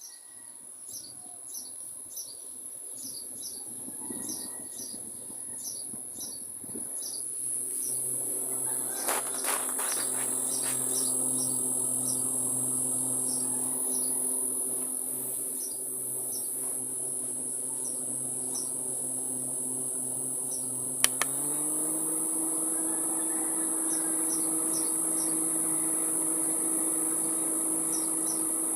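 Electric fan starting up about seven seconds in and running with a steady motor hum and rush of air. About 21 seconds in there is a click and the hum steps up in pitch and gets a little louder, as the fan is switched to a higher speed. Crickets chirp steadily throughout.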